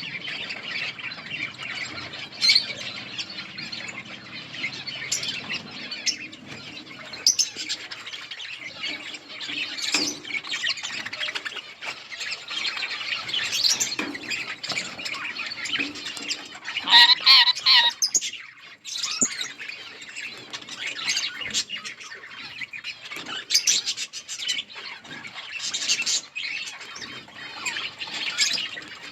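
A flock of budgerigars chattering and chirping together: dense, overlapping warbles with sharper calls and occasional wing flaps, and a louder burst of calls about 17 seconds in.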